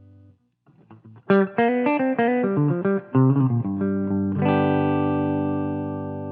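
Electric guitar played through a Kardian Serotonin overdrive pedal, a Tube Screamer–style overdrive with a warm, mid-heavy drive. A chord dies away, then comes a quick run of single notes, and then a held chord that rings on near the end.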